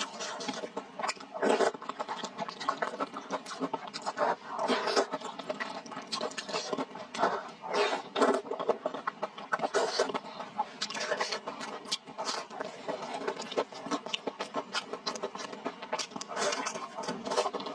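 Person eating thick fried rice noodles, slurping and chewing with irregular wet mouth sounds, then biting into a meat patty near the end.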